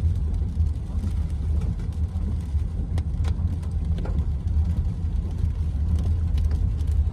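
Car driving, heard from inside the cabin: a steady low road and engine rumble with a few faint scattered ticks.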